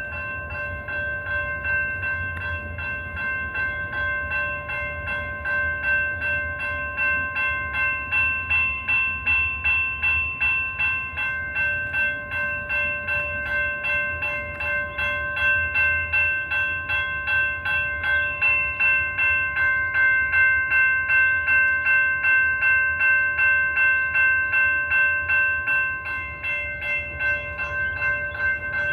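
Railroad crossing warning bell ringing on and on in a quick, even rhythm, a bright metallic tone with several overtones. The crossing signals have activated with no train present: a signal malfunction.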